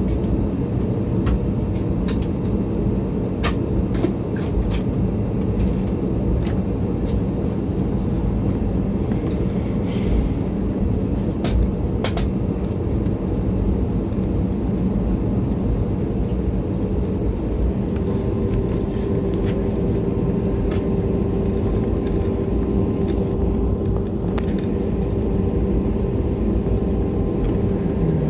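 Airliner cabin noise: a steady low rumble from the engines and airframe, with scattered light clicks and rattles. A steady humming tone comes in about two-thirds of the way through.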